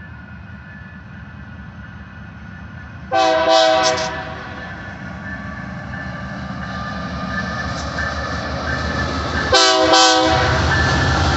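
Nathan K3LA five-chime air horn on a GE Dash 8-40BW diesel locomotive sounding for a grade crossing: a group of short blasts about three seconds in and two more near the end. Under it the approaching locomotives' diesel engines rumble, growing steadily louder.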